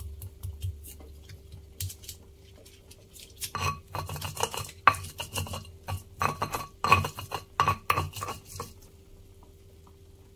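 Stone pestle (ulekan) pounding and grinding fresh chillies, shallots, garlic and candlenuts against a stone mortar (cobek). A few light taps come first, then from about three and a half seconds in a run of quick, repeated knocking and scraping strokes, which stops shortly before the end.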